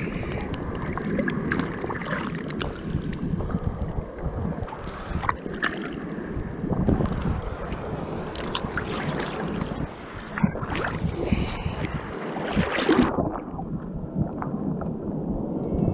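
Choppy surf sloshing and splashing around a wading angler, with wind buffeting the microphone.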